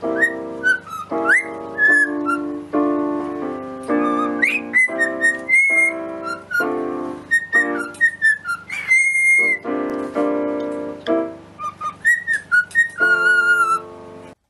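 A cockatiel whistling short, rising and falling notes along with a piano melody played on a digital keyboard, the whistles and piano notes interleaving. Both stop suddenly near the end.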